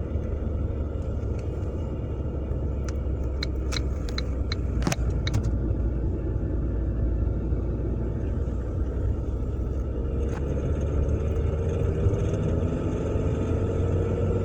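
A 2006 Ford Mondeo Mk3's 125 PS Duratec engine driving with a low steady rumble, and the turn-signal relay clicking several times a few seconds in. Near the end the engine accelerates in third gear with its note rising, and a rattle sets in, probably from the engine bay, that comes only under load in gear at about 2000–2500 rpm.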